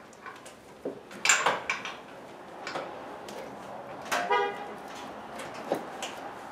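Metal hand tools clinking and knocking against the engine's serpentine-belt tensioner as a wrench is fitted to release the belt, with a short high squeak about four seconds in.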